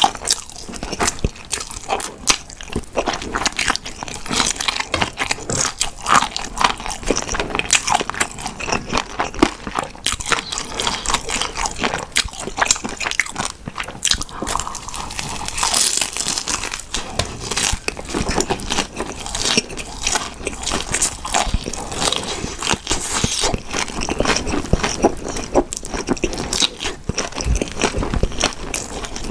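A person biting and chewing crunchy food, a dense, steady run of crisp crunches and mouth sounds.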